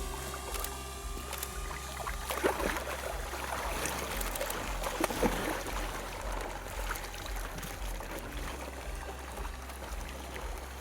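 Water splashing and sloshing, loudest from about two to six seconds in, with sharp knocks, over a steady low pulsing drone.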